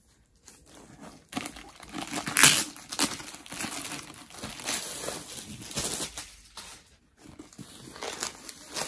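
Clear plastic wrap crinkling and tearing as it is pulled off a rolled canvas, loudest a couple of seconds in, with a short pause near the end before more rustling.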